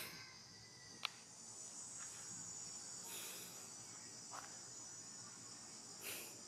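Faint, steady high-pitched insect chorus trilling throughout, with a single sharp click about a second in and a few brief soft rustling noises around three and six seconds in.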